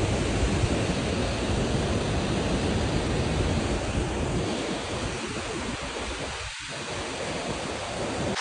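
Steady rushing noise of river water, with wind buffeting the microphone in a low, uneven rumble.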